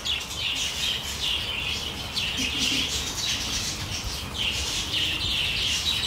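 A flock of budgerigars (budgies) chattering, with many quick high chirps overlapping without a break.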